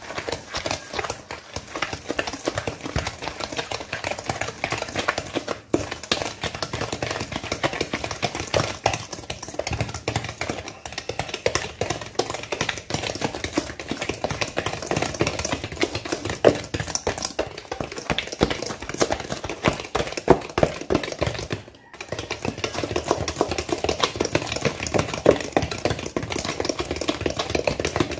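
Wire whisk beating butter, brown sugar and eggs by hand in a stainless steel bowl, creaming the mixture: a fast, steady run of clicking, scraping strokes against the metal, with a brief pause about three-quarters of the way through.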